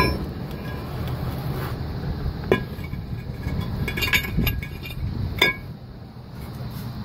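Scattered sharp metallic clinks and knocks with brief ringing, several close together just past the middle: steel brake parts and hand tools being handled and set down during a brake job.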